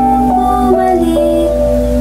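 Music: a slow melody of held notes that change pitch every half second or so over a sustained low note.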